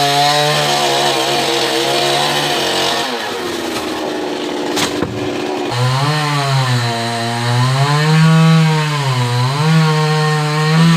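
Chainsaw cutting a coconut tree trunk: the engine runs high, drops to idle about three seconds in, then is revved up again near six seconds, its speed dipping and rising under load. A single sharp click comes while it idles.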